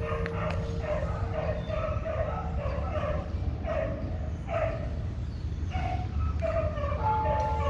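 A dog yelps and howls over and over, about two short cries a second, while the hum of a struck Buddhist temple bell fades. The bell is struck again near the end.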